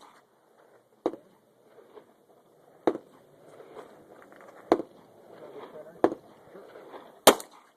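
Five single shots from a Walther P22 .22 rimfire pistol, fired one at a time about a second and a half apart, with low voices between them.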